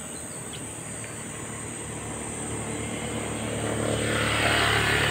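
A motor vehicle approaching, its engine hum and tyre hiss growing steadily louder to a peak near the end.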